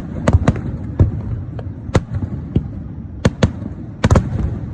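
Fireworks bursting overhead: a string of sharp bangs and crackles at uneven intervals, about two a second, over a steady low rumble.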